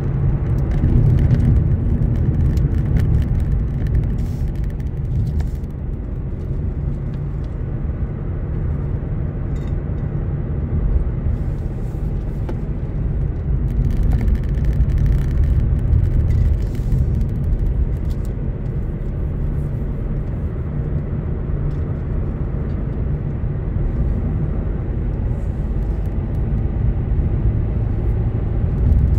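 A car's engine and tyres heard from inside the cabin while driving at speed, as a steady low rumble.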